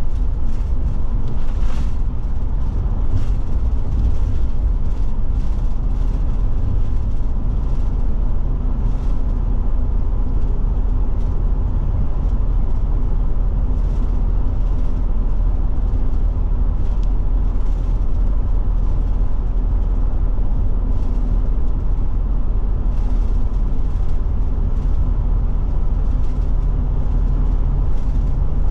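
Steady engine drone and road rumble inside the cab of a Forest River Forester motorhome driving along. Faint light ticks and rattles come through now and then.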